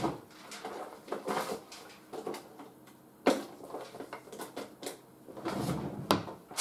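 Scattered light knocks and rustling, with two sharp clicks about three seconds in and near the end: someone rummaging for a marker pen.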